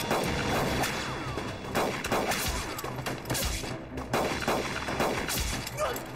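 Pistol gunfire in a shootout: repeated sharp shots, some in quick runs, echoing off rock walls.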